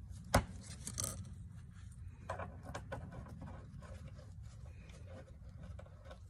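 Hand work on a rubber solution hose and its small metal crimp fitting: a sharp click about half a second in, another a little later, then light scraping and small knocks over a steady low hum.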